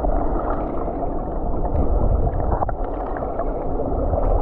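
Muffled rushing of water and bubbles picked up by a camera held underwater, with faint small clicks and pops.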